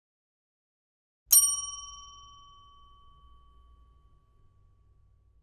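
A single bright bell ding about a second in, with a few clear ringing tones that fade away over about three seconds: a logo chime for the end card.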